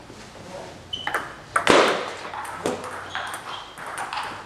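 Table tennis ball being hit back and forth in a rally: a series of sharp ping-pong clicks of ball on bat and table, with one louder, harsher hit about a second and a half in.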